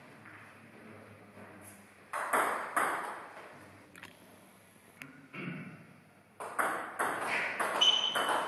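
Table tennis ball clicking a few times about two seconds in, then, after a lull, a rally starts: a quick run of sharp clicks as the ball is struck by the bats and bounces on the table, two to three a second. A short high squeak comes near the end.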